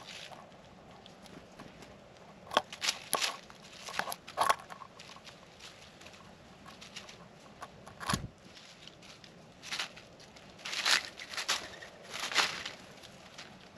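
Irregular sharp taps and clicks of birds and a squirrel picking peanuts off a plate, with a duller thump about two-thirds of the way through and a few short rustles near the end.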